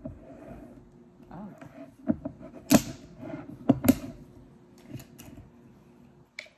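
A wine bottle's closure being twisted open by hand: a few sharp clicks and cracks with some rustling, the two loudest a little under 3 s and near 4 s in.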